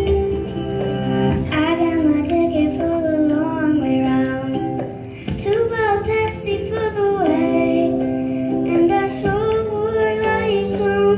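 A young girl singing into a handheld microphone over a guitar accompaniment; her voice comes in about a second and a half in.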